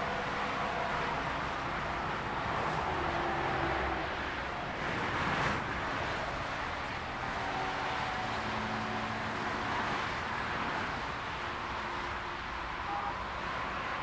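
Dense motorway traffic heard from above: a continuous rush of tyre and engine noise from passing cars and lorries. One vehicle passes close, a brief swell about five and a half seconds in.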